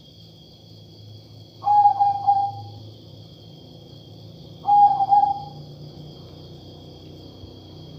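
Perkutut (zebra dove) of the katuranggan majapahit type cooing twice, about three seconds apart: each coo is a quick stuttering run of notes that settles into a held low note. Its voice is held to differ from the usual perkutut song.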